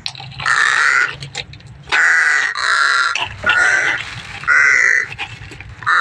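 A bird giving a run of loud, harsh calls, several short calls in quick succession with brief gaps between them.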